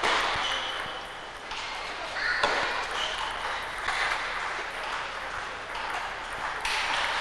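Table tennis balls being struck with rackets and bouncing on the table in a rally, the repeated clicks of ball on rubber and table sounding over the haze of a large practice hall.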